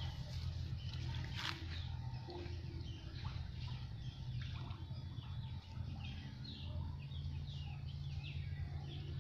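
Birds chirping over and over, many short falling chirps, over a steady low hum.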